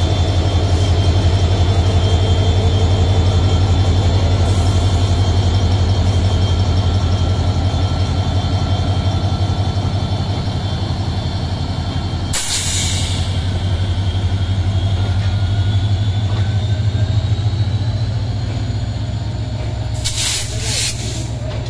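Bangladesh Railway 3000-series diesel-electric locomotive passing close by, its engine running with a loud, steady deep drone as its passenger coaches follow. A sharp hiss of air about halfway through and a few short hisses near the end.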